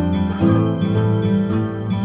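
Background music: a gently strummed acoustic guitar over held chords, with the chord changing about half a second in.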